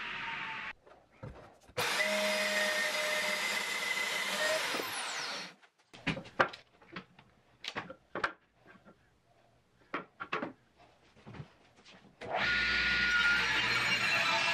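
Table saw running and cutting thin strips of wood, in stretches that stop abruptly. Between the runs come sharp clicks and knocks of wood pieces handled on the saw table. The saw starts running again near the end.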